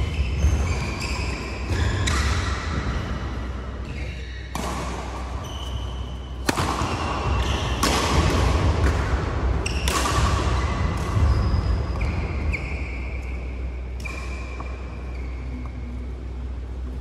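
Badminton rally: sharp racket strikes on the shuttlecock every second or two, each ringing on in the large hall, with short high squeaks and a steady low hum underneath.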